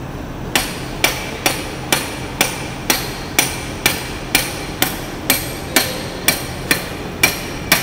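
Steady metal-on-metal hammer taps, about two a second, each with a short high ring, as steel is struck to drive the bearing off a transmission input shaft.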